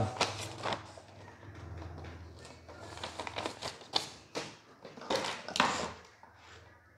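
Sheet of paper rustling and crinkling as it is handled and set aside, followed by light clicks and rattles of plastic wiring connectors and wires being picked up on a tabletop.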